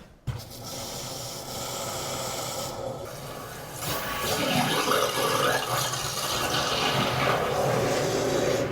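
Water rushing through the supply plumbing into a newly installed electric water heater tank as the cold supply is turned on to fill it. The rush starts just after the beginning and gets louder about four seconds in.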